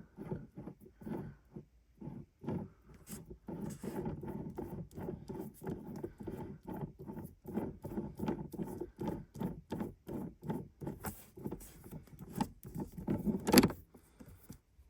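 Quick, irregular scraping and clicking of metal and plastic at the shift lever as the original shift knob of an Acura Integra Type S is worked loose and off, with one sharper knock near the end.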